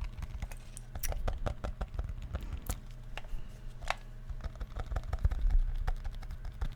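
Fingers tapping and clicking on a small hard object in quick, uneven taps, with a slightly ringing tap near the middle and some low handling bumps.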